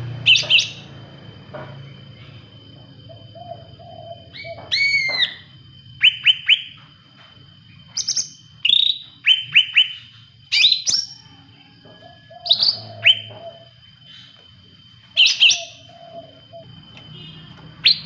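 Caged cucak ranting, a small leafbird kept as a songbird, singing: loud, short phrases of sharp chirping notes every second or two, with lower warbling notes between some of them.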